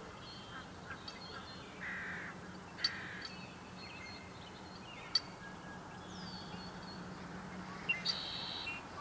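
Spring dawn chorus of several songbirds: many high chirps and trills, two louder, lower calls about two and three seconds in, and a falling whistle about six seconds in. Two sharp clicks stand out, about three and five seconds in, over a faint steady low hum.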